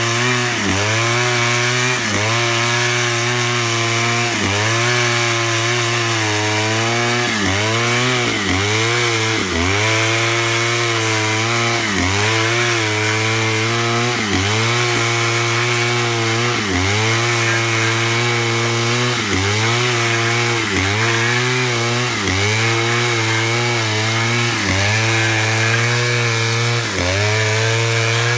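Stihl chainsaw running at high speed while ripping pine lengthwise into lumber, its engine pitch sagging and recovering about every second and a half under load.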